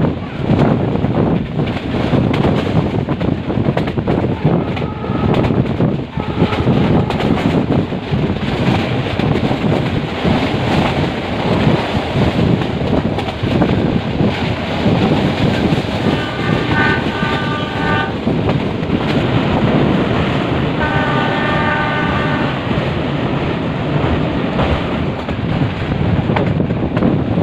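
Metre-gauge passenger train running steadily along the track, its wheels and carriages making a continuous rumble. About two-thirds of the way in the locomotive horn sounds twice, each blast a couple of seconds long.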